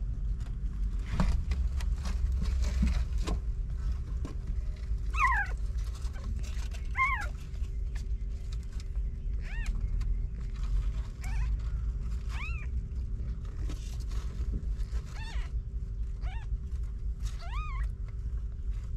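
Newborn kittens mewing: about eight short, high-pitched cries scattered through, over a steady low background rumble.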